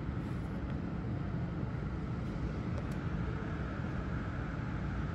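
Steady low rumble of distant city traffic, even throughout, with no single sound standing out.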